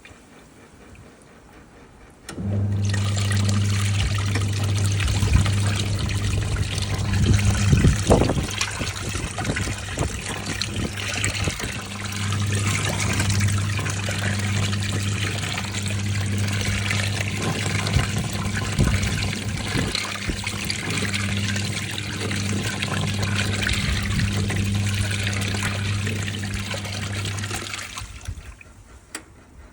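National NA9450PN washing machine in its rinse cycle: a steady electrical hum with rushing, sloshing water. It starts about two seconds in, dips briefly partway through, and stops shortly before the end.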